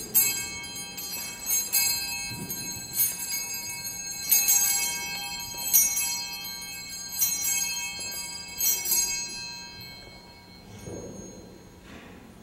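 Altar bells rung at the elevation of the consecrated host: a shaken cluster of small bells giving a bright, high ringing, struck about every second and a half, dying away near the end.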